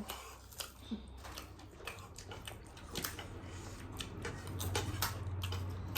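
People eating a meal: scattered small clicks and taps from chewing and handling food. A low steady hum underneath grows louder about halfway through.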